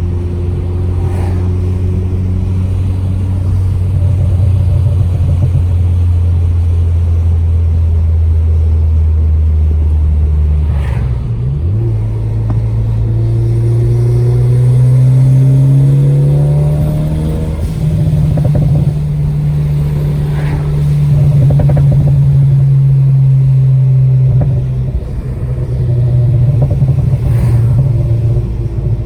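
Ford Focus ST's turbocharged EcoBoost four-cylinder on the move through a Cobb exhaust with catless downpipe. It holds a steady drone, changes about eleven seconds in, then revs climb and hold higher. A few short sharp pops from the crackle tune come through.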